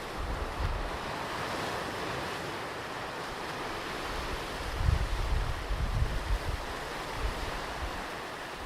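Ocean surf washing onto a beach, a steady hiss of breaking waves that swells and eases. Low gusts of wind buffet the microphone near the start and again about five seconds in.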